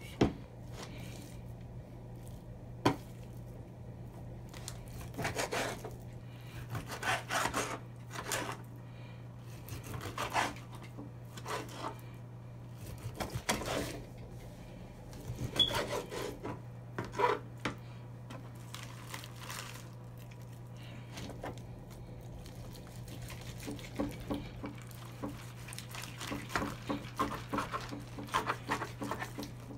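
Metal meat grinder working through raw chicken breast: irregular scraping and rubbing bursts as the auger and blade turn, with two sharp metallic knocks near the start.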